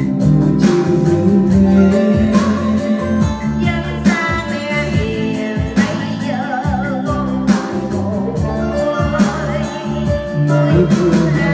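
A voice singing a slow Vietnamese song over an instrumental karaoke backing track, the sung notes held with a wavering vibrato.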